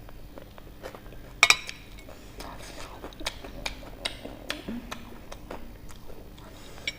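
Eating sounds from a mukbang of spicy ramen noodles: a utensil clinks sharply twice against a dish about a second and a half in. A run of small clicks and smacks from eating follows, with one more clink near the end.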